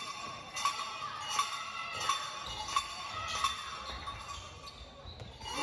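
A handball being bounced on a wooden sports‑hall floor at a steady rhythm, about one bounce every 0.7 s, each bounce echoing in the hall; the bouncing stops about three and a half seconds in.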